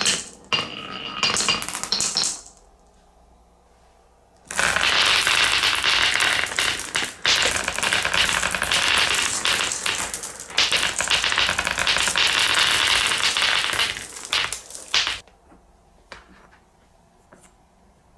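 Glass marbles rolling and clacking against each other in the grooves of wooden Cuboro marble-run blocks. A quick run of clicks comes first, then a short pause, then a continuous rattling clatter of many marbles tumbling through the wooden channels for about ten seconds. The clatter stops abruptly, and only a few faint knocks follow.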